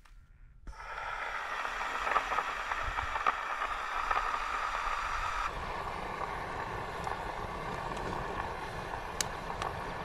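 Gas fire-lighter burner, fed by a hose from a blue LPG cylinder, burning with a steady rushing hiss under logs in a steel fire basket. A few sharp crackles near the end as the wood catches.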